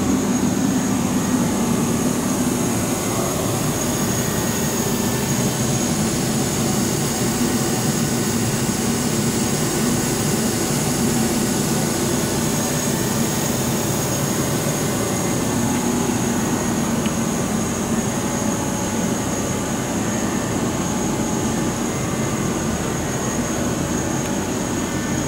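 Steady machinery noise: an unchanging rush with a low hum and a thin, constant high whine.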